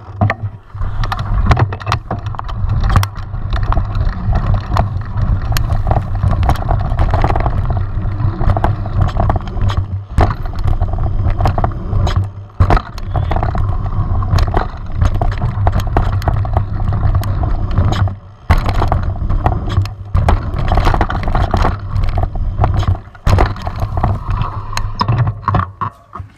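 Mountain bike ridden over a dirt trail, heard from a camera riding along on the bike or rider: a loud, steady rumble with frequent sharp rattles and knocks, dropping away for a moment about four times.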